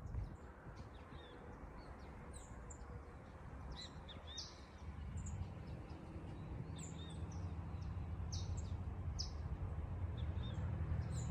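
Riverside outdoor ambience: short, high bird chirps repeated on and off over a steady low rumble.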